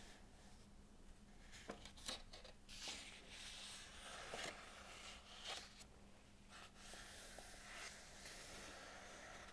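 Soft rustling and brushing of book pages as fingers slide over the paper and lift and turn a page, with a few light, crisp paper crackles, over a faint steady hum.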